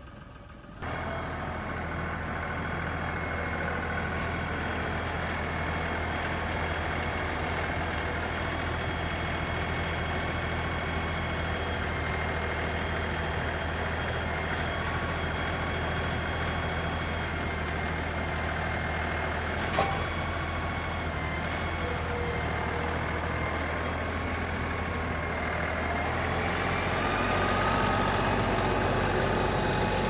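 LS compact tractor's diesel engine running steadily under load, with a steady high whine over it, while the front-loader grapple carries a saw log. The engine gets louder and fuller in the last few seconds.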